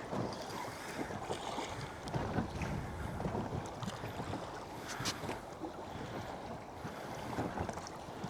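Wind buffeting the microphone and water lapping against a small boat's hull at sea, with a few faint knocks.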